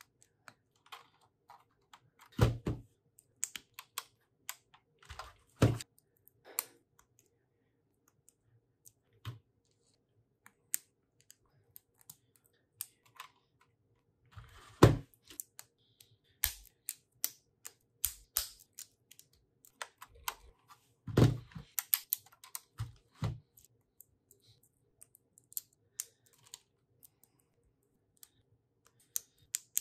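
Small plastic Lego bricks clicking and clattering as they are handled and snapped together, with a few louder knocks spread through.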